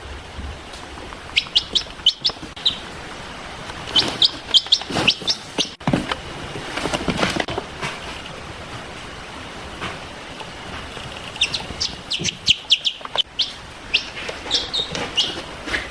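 Baby chicks peeping: several bursts of rapid, short, high peeps, with quieter pauses between the bursts.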